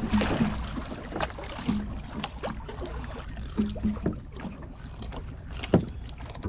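Small fishing boat at sea: irregular knocks and thumps over a steady low rumble of water and wind on the microphone.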